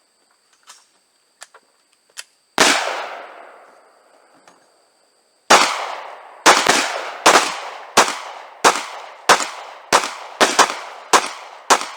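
Gunshots from a firearm: a few light clicks, then a single shot, a pause of about three seconds, then a steady string of about a dozen shots fired roughly one to two a second, each trailing off in a short echo.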